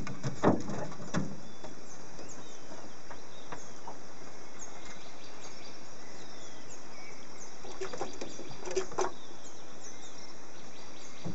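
Steady rushing outdoor background of a river, with faint high chirps repeating about twice a second. A few short knocks come near the start and again around eight to nine seconds in.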